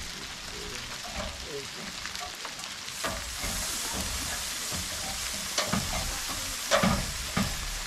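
Sleet falling in a steady hissing patter that gets heavier about three seconds in, with a few sharp knocks near the end.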